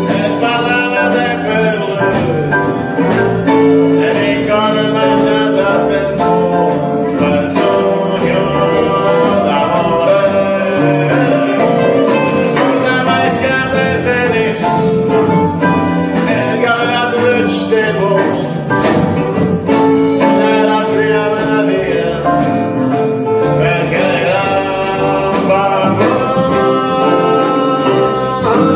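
Live jazz-tinged band music: piano, guitars and drums playing a song, with a man singing over them at times.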